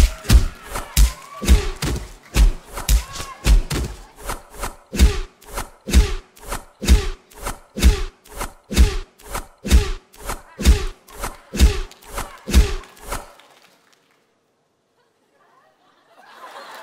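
A steady run of heavy thumps from a popping routine's playback track, about two a second. It stops about 13 seconds in, and a faint sound begins just before the end.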